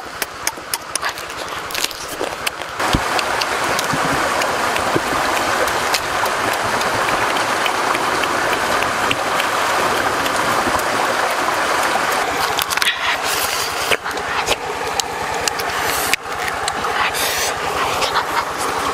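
Cooked crab shell cracking and crunching as it is chewed and pulled apart. About three seconds in, a steady rush of flowing stream water takes over. From about thirteen seconds, shell cracking and crackling comes again over the water.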